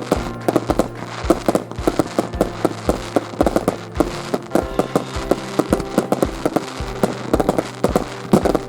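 Fireworks bursting and crackling in quick, irregular succession, with deep thuds among the sharper cracks, over music playing.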